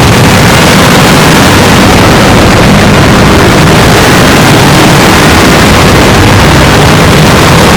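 Steady, harsh wall of distorted noise at full volume with no breaks: a sneeze recording pushed through stacked audio effects until the sneeze is no longer recognizable.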